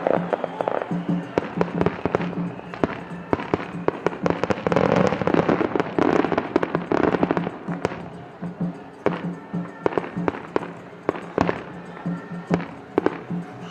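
Aerial fireworks going off in quick succession, sharp bangs with crackling, thickest and loudest in a dense volley in the middle. Steady music plays underneath.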